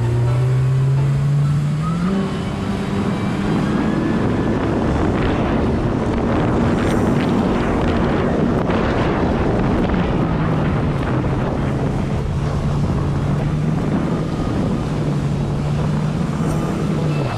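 Kawasaki Ultra 310 jet ski's supercharged four-cylinder engine running under way, its pitch rising about two seconds in and holding higher, then dropping back about ten seconds in. Heavy wind on the microphone and rushing water spray over it, loudest in the middle.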